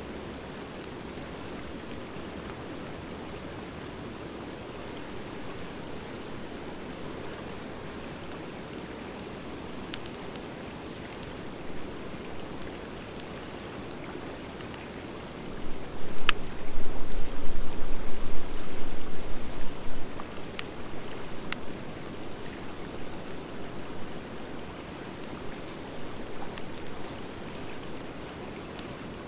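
Driftwood and dry hardwood logs burning in a fire pit: a steady soft hiss with scattered sharp pops and crackles. About halfway through, a louder low rumble lasts some four seconds.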